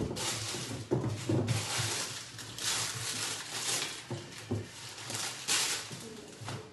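Plastic grocery packaging crinkling and rustling in irregular bursts as it is pulled off and handled, with a few soft knocks of items set down on fridge shelves.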